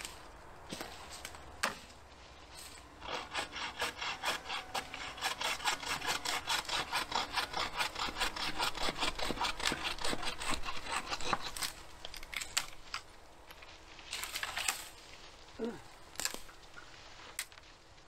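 Hand saw cutting through dead wood in quick, even back-and-forth strokes for about eight seconds, then stopping, followed by a few knocks and a rustle.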